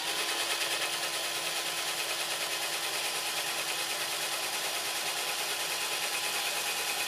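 Cordless drill running at high speed, a thin 2 mm bit drilling a pilot hole through a plastic skid plate into the wooden skateboard deck: a steady whine that starts suddenly. The bit seems to be barely cutting, which the driller wonders may be a low battery.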